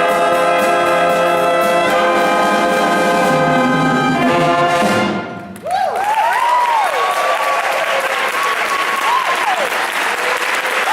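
School jazz band with trumpets and trombones holding a final chord that cuts off about five seconds in. The audience then applauds, with cheering.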